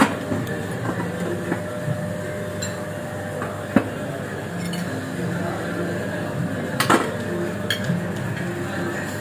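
Sharp metallic clinks of stainless steel chafing-dish lids and crockery being handled, a few separate knocks, the loudest just under four seconds in and about seven seconds in, over a steady background murmur of voices.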